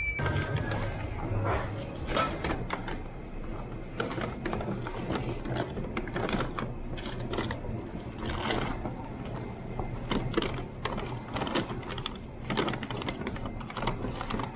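Mechanical clicking and rattling: many sharp, irregular clicks over a steady low rumble.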